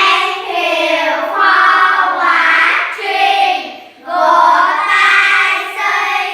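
A child singing a song in long held phrases, with a brief pause about four seconds in.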